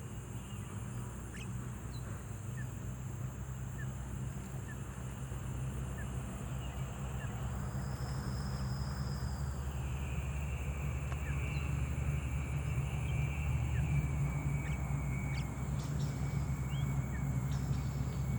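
Outdoor field ambience: short bird chirps and long high calls over a steady high-pitched drone, with a low rumble that slowly grows louder.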